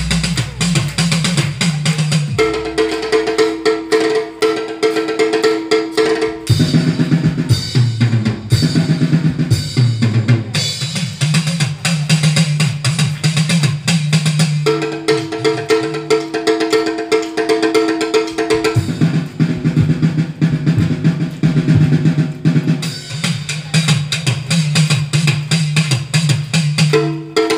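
Live vrinda vadyam instrumental ensemble: a drum kit keeps a busy, steady beat over a bass line, while held melodic notes come in and drop out in stretches.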